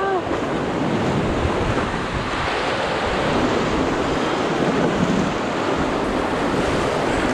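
Rushing whitewater of river rapids around a raft, a steady rushing noise, with wind buffeting the microphone.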